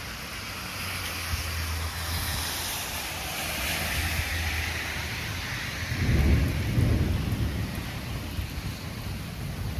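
Thunder from a cloud-to-ground lightning storm over steady rain. A low rumble builds into a loud peal about six seconds in, then rolls off.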